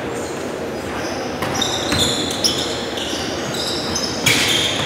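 Basketball bouncing on a hardwood gym floor as it is dribbled, with sneakers squeaking sharply on the boards as players cut; the loudest squeak comes near the end.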